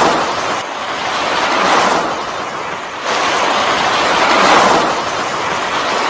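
Sea surf: waves washing in, a steady rushing that swells and eases every couple of seconds.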